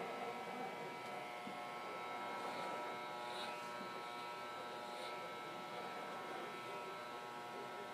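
Corded electric hair clippers running with a steady buzz as they cut a boy's hair.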